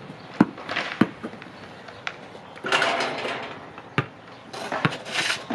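Basketball being dribbled on asphalt: single hollow bounces at an uneven pace, a gap of about two seconds in the middle. Around three seconds in there is a rush of noise lasting about a second.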